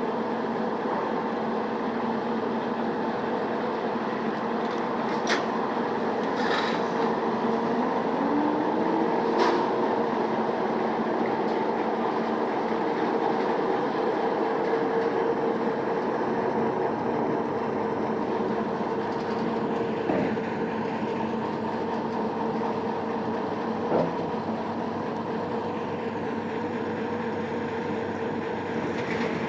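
Small Köf II (DB class 323) diesel shunting locomotive running steadily at idle, a constant hum, while it rides the turning turntable. A brief rising tone comes about eight seconds in, and a few sharp metallic clicks and knocks are scattered through.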